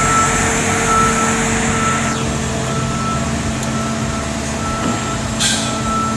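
Back-up alarm of a construction crane beeping about once a second over its running engine, with a short hiss about five seconds in.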